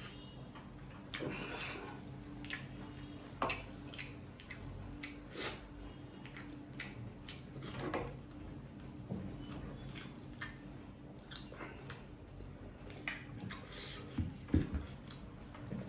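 Close-up eating sounds: chewing noodles, with scattered small clicks and knocks of chopsticks and a spoon against wooden bowls, over a faint steady low hum.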